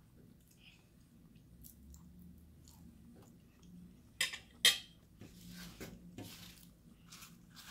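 Soft chewing, then a metal fork clinks twice against a plate, sharply, about half a second apart, a little past halfway as it is set down.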